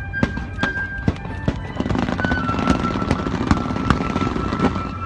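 Fireworks going off in a string of sharp bangs, a few each second, over loud background music.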